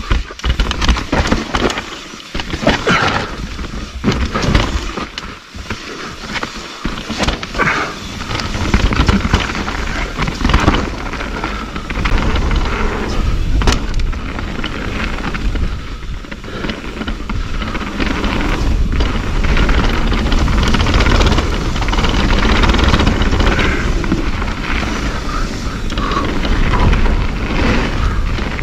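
Mountain bike riding down a rough dirt trail, heard from a camera carried on the ride. Wind rumbles on the microphone over a steady rush of tyre noise, and the bike knocks and rattles often over bumps. The rumble grows louder about halfway through.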